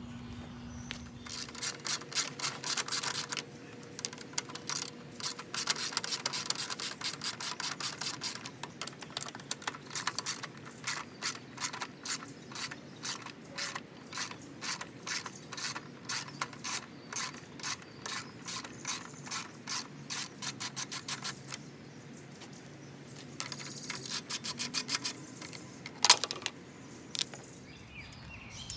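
Hand socket ratchet clicking in repeated runs of quick strokes, loosening fasteners to take the mower apart. There is a single sharper knock near the end.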